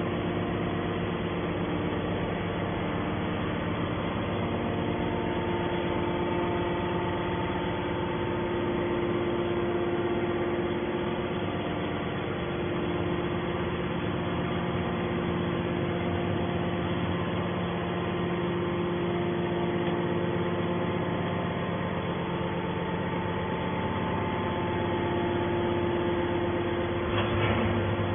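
Hydraulic scrap metal baler running: a steady machine hum from its motor and pump, with several constant tones, and a short knock near the end.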